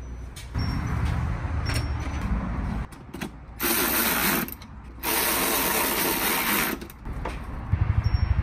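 Cordless power ratchet driving bolts into an anchor bracket, running in four bursts of one to two seconds each. The last burst has a rapid pulsing as the bolt snugs up.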